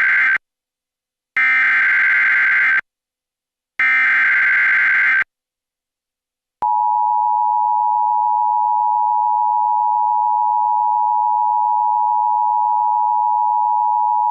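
Emergency Alert System activation: the end of one burst of SAME header data tones, then two more identical bursts about a second and a half long, followed after a short gap by the EAS attention signal, a steady two-tone sound (853 and 960 Hz) held for about eight seconds.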